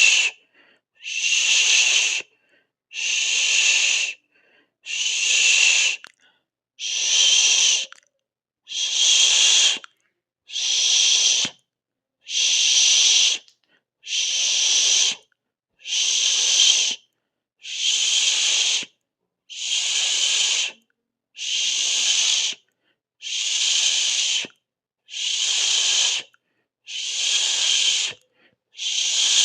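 Rhythmic hissing, a 'shh' sound of a second or so repeated every two seconds with silent gaps between, about fifteen times.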